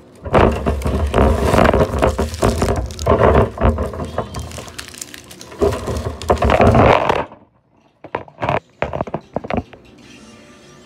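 Handling noise right on a phone's microphone: loud rustling and scraping with low thuds as the phone rubs against an arm and clothing. After about seven seconds it cuts out briefly, then comes a string of sharp clicks and knocks.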